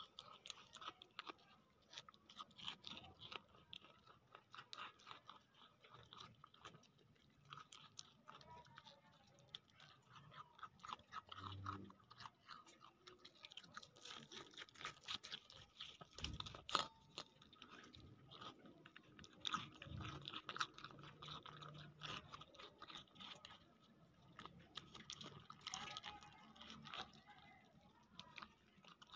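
Goat kid chewing watermelon rind: a quiet, irregular run of small crisp crunches, with one louder click a little past halfway.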